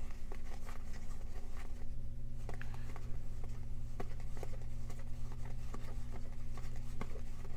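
Cardboard baseball cards from a stack of vintage 1970s cards being flipped and slid past one another by hand, making irregular soft flicks and scrapes several times a second. A steady low hum runs underneath.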